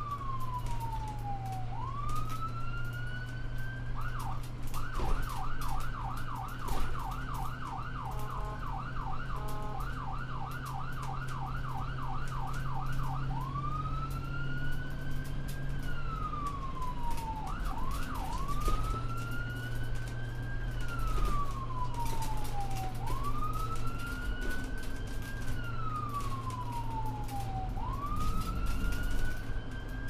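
American ambulance electronic siren running in a slow wail that rises and falls every few seconds, switching to a fast yelp of about three sweeps a second for some ten seconds, then back to the wail. Under it runs the steady drone of the ambulance's engine and road noise as it drives.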